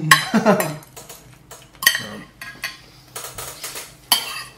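Metal spoons and forks clinking and scraping on ceramic plates, in a series of irregular sharp clinks.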